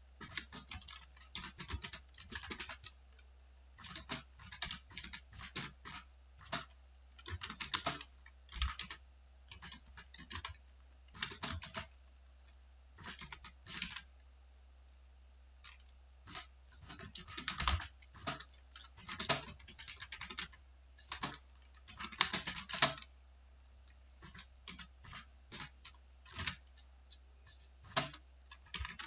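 Computer keyboard typing in irregular flurries of keystrokes with short pauses, over a steady low hum.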